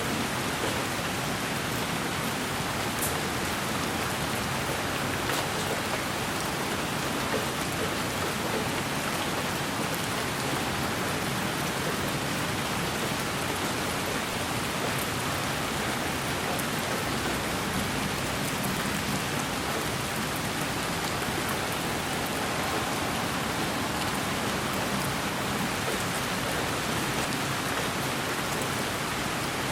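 Steady, even rain falling, with a few faint drop ticks.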